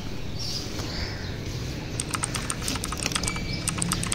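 A cloth being rubbed over a car windshield. From about halfway in there is a rapid, irregular run of sharp little clicks and squeaks.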